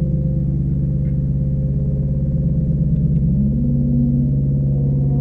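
Droning, gong-like synthesizer tones from a Make Noise Mimeophon delay set to self-oscillate and run through a Make Noise Spectraphon in spectral amplitude modulation mode. A dense stack of low tones holds steady, and about three seconds in one tone slides up in pitch and settles higher.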